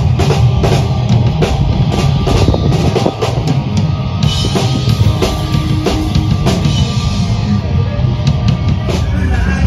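Instrumental rock music with a full drum kit keeping a steady driving beat of about two hits a second.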